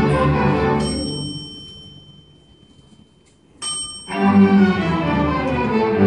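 Student string orchestra of violins, cellos and double bass playing; the music breaks off about a second in and dies away into a brief pause, then the strings come back in sharply and play on loudly.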